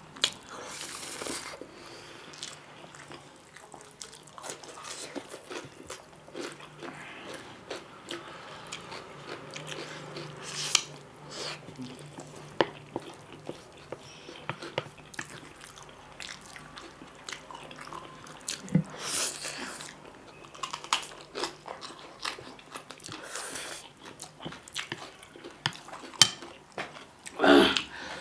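Two people slurping spicy instant noodles and chewing wetly, with many small sharp clicks and smacks throughout and a few louder slurps.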